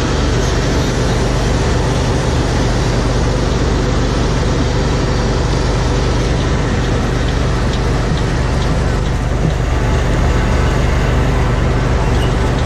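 An engine running steadily, with a constant low hum and no change in speed.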